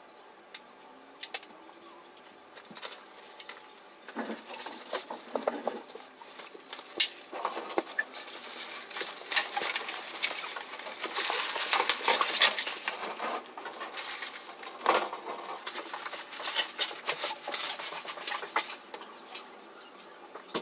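Someone handling cloth on a wire rack close to the microphone: rustling with many light clicks and knocks. It is busiest a little past the middle and thins out towards the end.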